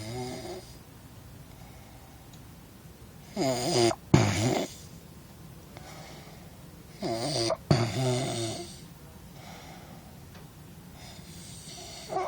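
A person snoring, with a loud snore about every four seconds, each broken by a short gap midway.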